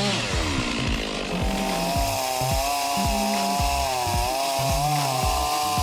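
Chainsaw running and cutting through a log, its engine pitch dipping and rising again and again as the chain bites under load.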